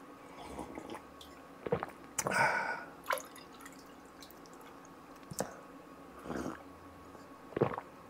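Water sipped from a drinking glass, then poured into it from a plastic pitcher, with a few light knocks of glass and plastic.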